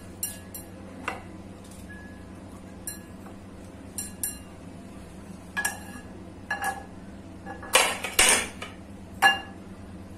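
Knife scraping mango pulp off the stone and clinking against a glass bowl: scattered light clinks, with a few louder scrapes near the end.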